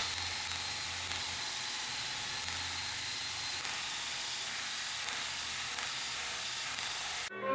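Craftsman cordless drill clamped in a vise, spinning a wire wheel while a metal hinge is held against it to scrub off old paint: a steady hiss over a low motor hum, cutting off abruptly near the end.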